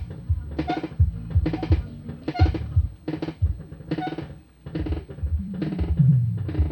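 Music with a heavy bass line and a drum beat, with a sharp hit about every three-quarters of a second, playing loudly through a car's aftermarket sound system from a Pioneer USB head unit.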